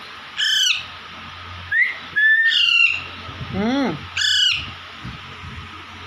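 Baby Alexandrine parakeets squawking: about five harsh calls over four seconds, several dropping in pitch.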